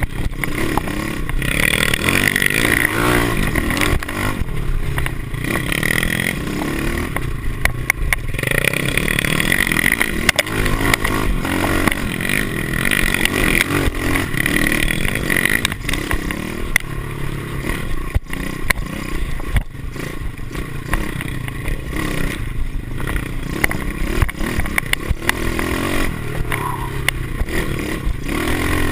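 Pit bike's small single-cylinder four-stroke engine running hard on a dirt trail, its revs rising and falling as the throttle is worked, with frequent knocks and rattles as the bike bounces over rough ground.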